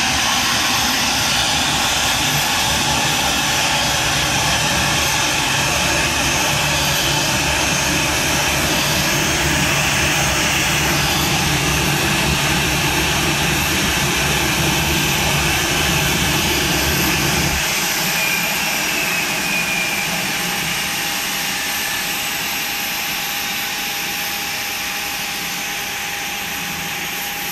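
Boeing 737 jet engines idling at low power as the airliner pulls up to its stand. About two-thirds of the way through, the low rumble drops away suddenly, leaving a steady whine that slowly fades as the engines spool down.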